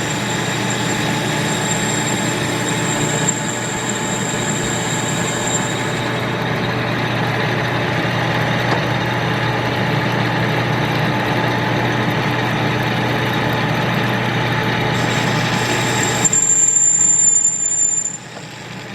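Victor 1640 manual lathe turning metal round stock: the motor and the rotary phase converter that powers it hum steadily while the cutting tool takes a dry pass with no cutting fluid. A thin high whine runs through the first few seconds and comes back near the end, and the sound drops off shortly before the end.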